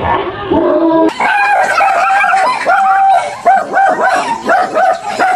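A dog barking and yelping in a rapid run of high, pitched calls, about three a second, starting about a second in, with a lower, shorter bark or growl just before.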